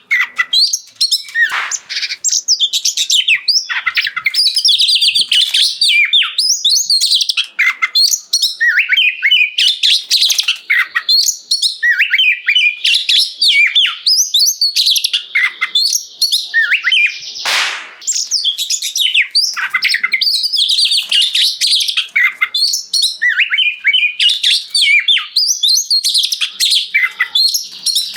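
Oriental magpie-robin (kacer) singing loudly and without pause: a fast stream of varied whistled and chattering phrases in full song. About two-thirds of the way through, one brief harsh rasp cuts in.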